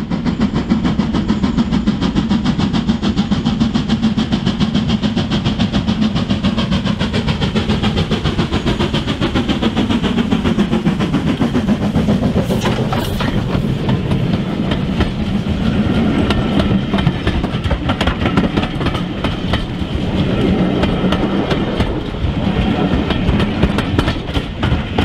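Model steam locomotive and its coaches running along the layout's track: a steady rumble with a fast, continuous clatter of wheels on rail.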